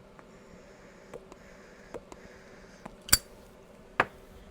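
Small hard objects handled on a workbench: a few light clicks, then two sharper knocks about three and four seconds in.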